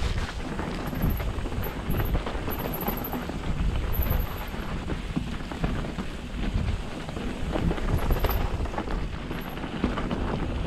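Mountain bike rolling fast down a dirt singletrack: wind buffeting the action camera's microphone over a steady rumble of tyres on the trail and a constant rattle of small knocks from the bike.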